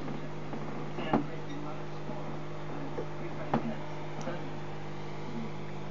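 Steady low electric hum of running aquarium equipment. Two sharp clicks stand out, about a second in and about three and a half seconds in.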